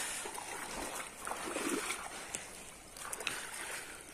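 Shallow pond water sloshing and splashing as people wade through it and drag a cloth net by hand, with a few brief ticks in the second half.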